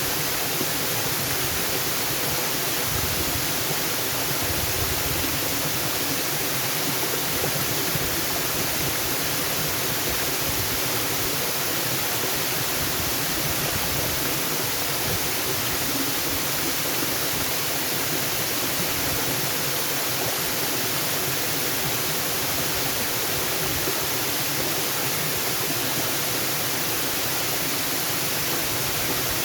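Natural waterfall: a steady, unbroken rush of falling water.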